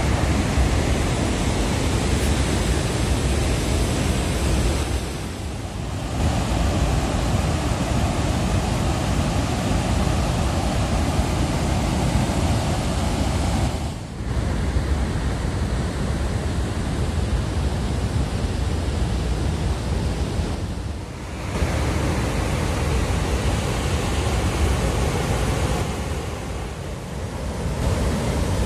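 Floodwater pouring through the open vertical crest gates of a masonry dam spillway and crashing into the pool below: a loud, steady rushing noise that dips briefly about four times.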